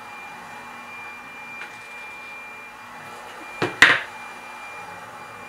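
Steady background hum with a thin high whine, broken a little under four seconds in by a sharp double clack.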